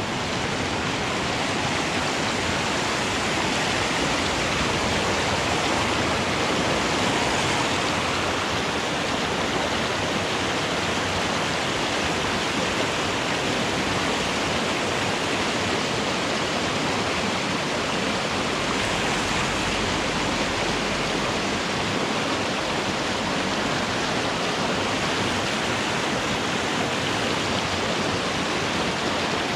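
Whitewater rapids of a mountain stream rushing over rocks, a steady, unbroken sound of water.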